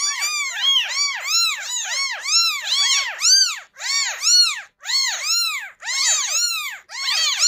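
Several newborn kittens, eyes not yet open, mewing without pause in high cries that rise and fall in pitch, two or three a second and overlapping. They are kittens left by their mother, calling as they crawl about trying to find each other.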